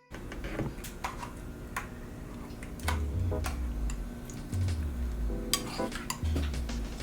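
Kitchen utensils clinking, knocking and scraping against cookware in scattered sharp strikes, over a low bass line of background music that pulses about every second and a half.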